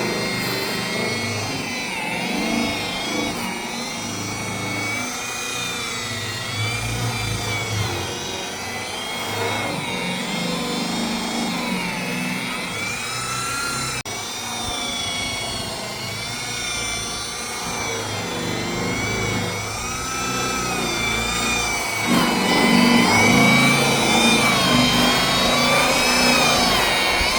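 Electric rotary buffer polishing paint, its motor whine rising and falling in pitch as the load changes. It grows louder about three quarters of the way through.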